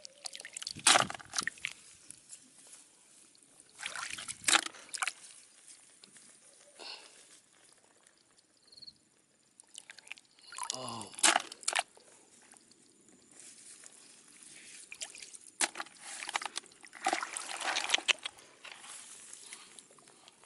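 Water sloshing and trickling in separate splashes, several seconds apart.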